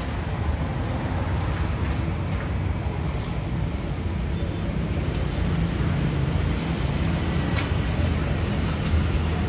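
Steady low rumble of road traffic, with a single sharp click about three-quarters of the way through.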